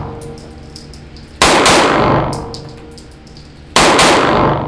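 Two pistol shots from a CZ P09 Compact Nocturne, about two and a half seconds apart, each echoing and fading slowly in an indoor range, with light ticks in between.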